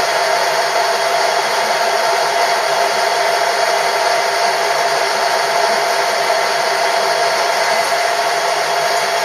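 Metalworking machine tool running steadily: a loud, even whir with a steady tone in it.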